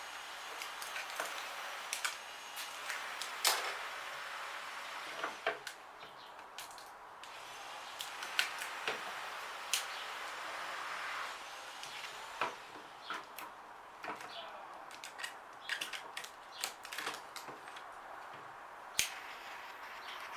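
Irregular clicks, taps and rubbing as tint wrap film is handled and pressed onto a plastic light lens, some clicks sharper than others.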